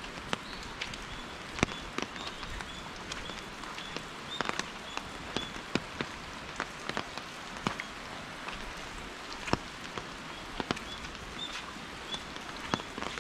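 Steady rain, with scattered sharp drop impacts close by. A short high-pitched note repeats roughly twice a second throughout.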